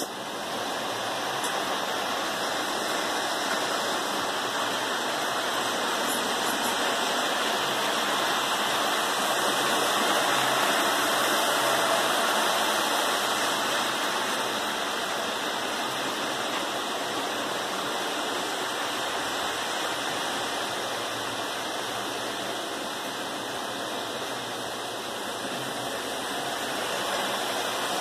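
Several electric model trains running together on metal track: a steady whirring rumble of wheels and motors that swells a little around ten seconds in as trains pass close.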